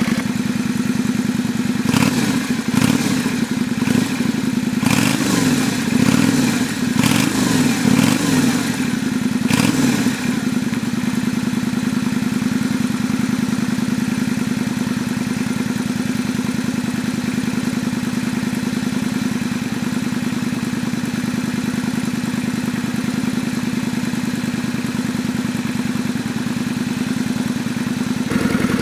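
Yamaha XV400 Virago's air-cooled V-twin engine running, the throttle blipped several times over the first ten seconds or so, each rev rising and falling, then settling back to a steady idle. The engine runs in good condition.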